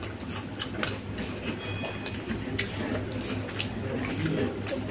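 Eating by hand: rice being mixed with egg omelette curry and chewed, giving scattered short wet clicks and smacks over a steady low hum.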